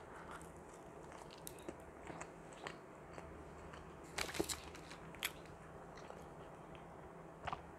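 A person chewing a mouthful of soft sub sandwich: faint mouth clicks and smacks, with a short louder crackle about four seconds in.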